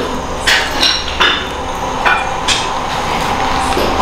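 Irregular sharp knocks, about five or six in four seconds, over a low steady hum.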